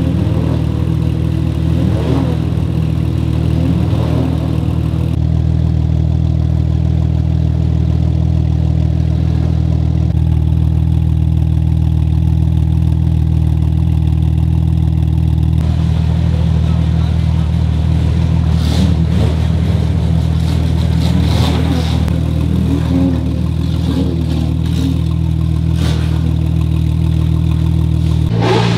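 Porsche 911 GT2 RS Clubsport 25's 3.8-litre twin-turbo flat-six idling steadily at a constant, even pitch from its twin centre exhaust tips.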